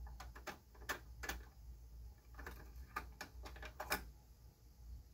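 Small metal clicks and ticks from an LGA1366 CPU socket's load lever being unlatched and its retention plate swung open, in two short bunches, the loudest click near the end.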